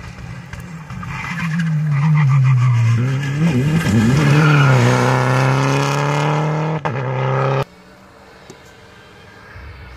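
Rally car engine passing at speed. It revs up, eases off briefly about three seconds in, then pulls hard again with a rising note, and cuts off suddenly about two-thirds of the way through.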